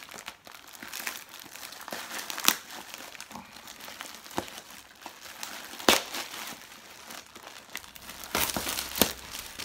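Plastic mailing bag being torn and pulled open by hand, crinkling steadily with a few sharp ripping cracks. Near the end the crinkling of the plastic wrap inside grows denser.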